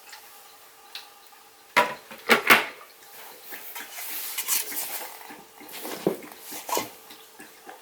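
Hard plastic knocks and clatter as a Crane ultrasonic frog humidifier and its freshly filled water tank are handled: three sharp knocks about two seconds in, then rustling with two more knocks near the end.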